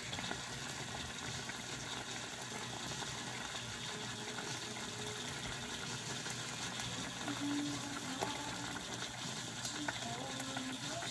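Shrimp in Sprite simmering in a rice cooker pot, the liquid bubbling steadily.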